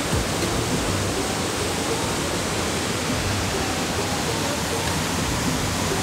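A very tall waterfall, heard from close by as a steady, even rush of falling water.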